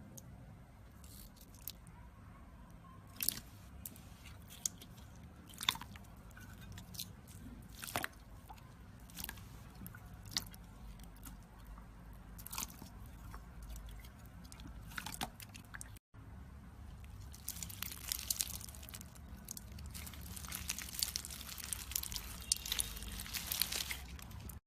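Slime being squished and pressed by hand, making scattered sticky pops and clicks. After a short break about two-thirds of the way in, it becomes a dense, steady crackling.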